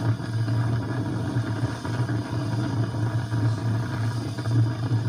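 A steady low mechanical hum with no change in pitch.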